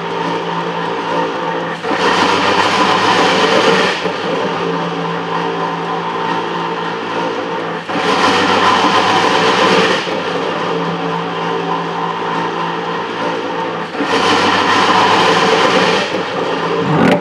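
Belt-driven metal planer running, its table going back and forth under a flat-bottom planing tool on a cast-iron casting: a steady machine hum with a louder two-second stretch about every six seconds. Near the end the sound swells with a sliding pitch and then falls away, as the drive belt slips when the cutter starts to bite.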